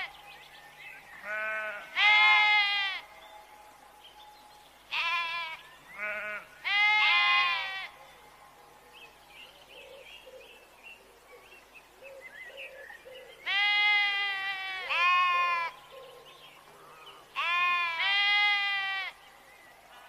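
Sheep bleating: about nine wavering bleats in four bouts of two or three calls, each bout a short bleat followed by a longer one. Faint bird chirps can be heard in the pauses.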